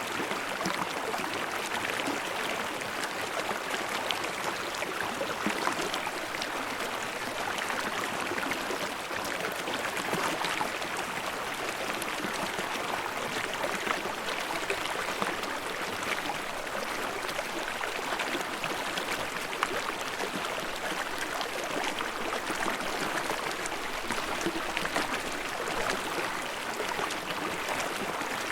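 Stream water rushing and babbling over rocks, a steady splashing flow.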